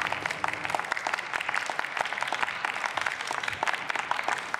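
Applause from members of parliament in a large chamber, a steady patter of many hand claps greeting the next speaker as he goes to the lectern.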